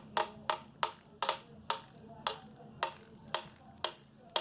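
An old Samsung flip phone being knocked against a hard surface, antenna end first: a run of about eleven sharp hard taps, a little over two a second in an uneven rhythm, each with a short ring.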